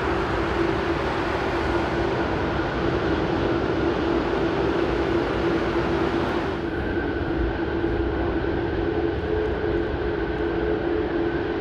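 Jet airliner engines running steadily while taxiing: a constant rumble with a steady whine. The higher hiss drops away abruptly about two-thirds of the way in.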